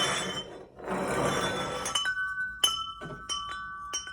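A handmade wind chime is lifted and handled with a rustling noise. About halfway through, its chimes start ringing as the hanging clapper strikes them several times in quick, uneven succession, the tones sustaining between strikes.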